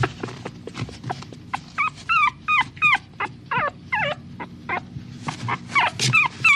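Small dog whimpering: a quick run of short, high-pitched whines, many falling in pitch, starting about two seconds in, with short clicks between them.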